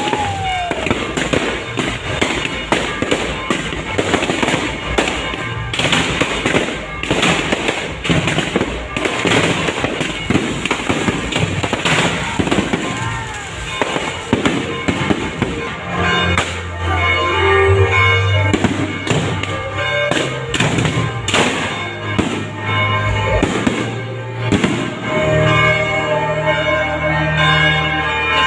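Fireworks going off in a dense, rapid barrage of bangs and crackles, with a falling whistle at the start. About halfway through, music with held notes and a heavy bass comes in, and the bangs carry on over it.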